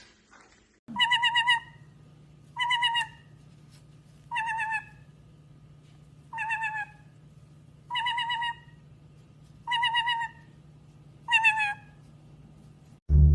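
A pet parrot giving the same warbling call seven times, evenly spaced about every second and a half to two seconds, each call well under a second long, over a faint steady hum.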